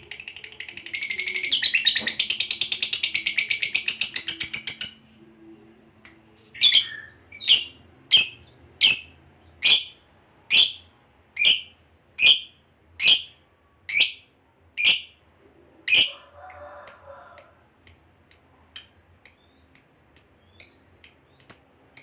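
Fischer's lovebird giving its long, rapid chattering trill (ngekek) for about five seconds. It then breaks into a run of sharp single chirps about one a second, which turn shorter, quieter and about twice as quick near the end.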